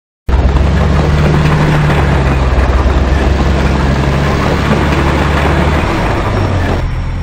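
Loud, steady, engine-like rumble, as of a heavy vehicle idling, that starts abruptly a quarter of a second in and thins out near the end.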